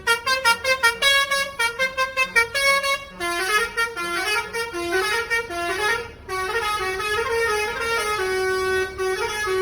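Bus 'telolet' air horn playing a tune: quick stuttering toots, about six a second, for roughly the first three seconds, then longer notes stepping up and down in pitch.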